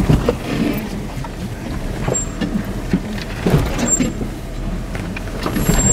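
Jeep driving over a rough, rocky trail, heard from inside the cab: a low engine rumble under irregular thumps and rattles as the tyres and suspension jolt over rocks.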